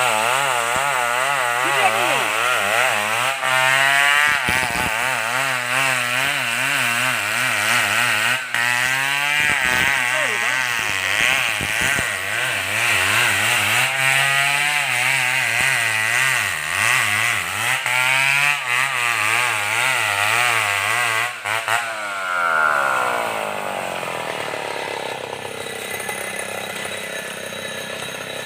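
Stihl 070 two-stroke chainsaw cutting wood at high revs, its engine pitch wavering up and down as the chain bites and frees in the cut. About 22 seconds in, the revs fall away and the saw runs slower and quieter.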